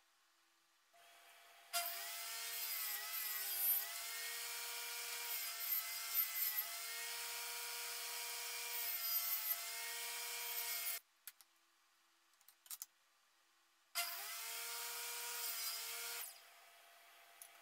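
Table saw running and cutting wood, its motor pitch dipping and recovering several times as the blade takes the load. It stops suddenly, then runs again briefly near the end.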